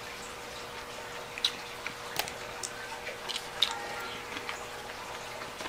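Spaghetti being eaten with a fork from a ceramic bowl: scattered sharp clicks of the fork and chewing, over a faint steady hum.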